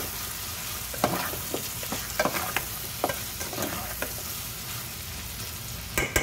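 Chicken pieces frying and sizzling in a pot as a metal spoon stirs them, with irregular knocks and scrapes of the spoon on the pot and a few sharper knocks near the end. The juices have cooked down and the meat is starting to dry out in the pan.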